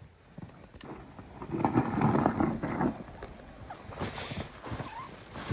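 Trail motorbike engine revving in one burst from about one and a half to three seconds in, with scattered clicks and knocks around it.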